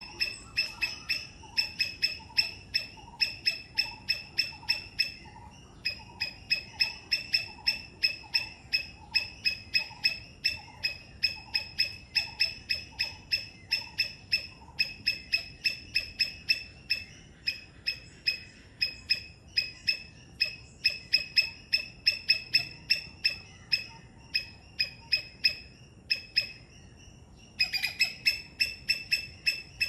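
Three-striped palm squirrel calling: a fast, even run of sharp, high chirps, about four or five a second, broken by two short pauses.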